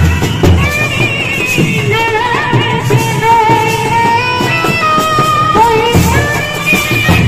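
Indian street brass band playing live: brass horns carry a wavering, ornamented melody over steady bass drum and snare beats.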